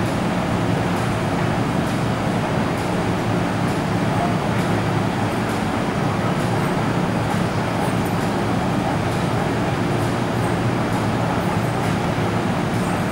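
Steady ambient noise of an underground metro station platform: an even hum and rush of machinery with no train arriving or departing.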